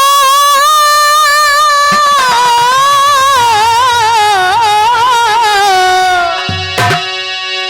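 A singer holds a long, ornamented sung note in a jikdi bhajan over a steady instrumental drone. The melody wavers and slowly falls, then stops about six and a half seconds in, leaving the drone with a single drum stroke.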